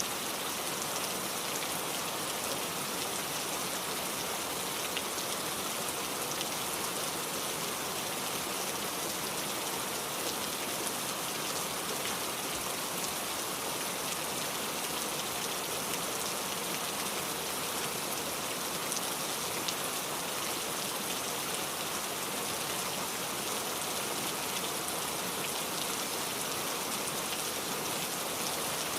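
Heavy rain falling steadily, a constant even hiss with small drop ticks scattered through it.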